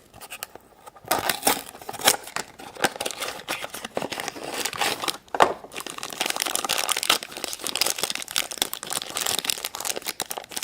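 Crinkly toy blind-bag wrapper being handled, crumpled and torn open by hand: a dense run of irregular crackles and rips, busiest in the second half.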